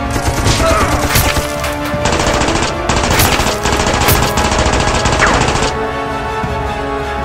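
Rapid automatic gunfire sound effects, a dense run of shots from just after the start to nearly six seconds in, over background music.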